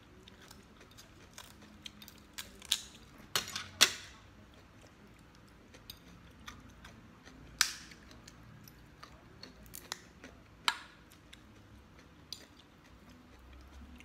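Cooked lobster shell being snipped with kitchen scissors and cracked apart by hand: scattered sharp snaps and clicks. The loudest are two cracks close together about three and a half seconds in, with others near eight and eleven seconds.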